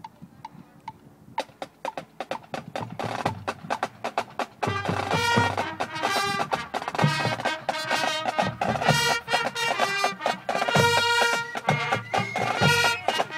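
Short beeps about twice a second, then rapid percussion clicks, joined about four and a half seconds in by loud marching band music with drums.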